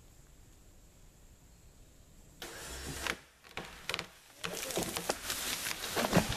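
A pickup truck's engine starts about two and a half seconds in and runs as the truck pulls on a partly cut pine tree held under tension. Sharp cracks and crashing follow as the trunk gives way and the tree comes down.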